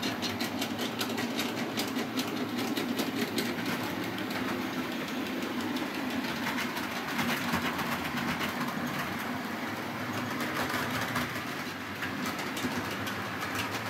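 Model train running on the track: a steady electric-motor hum with quick clicking of the wheels over the rail joints, the clicks densest in the first few seconds.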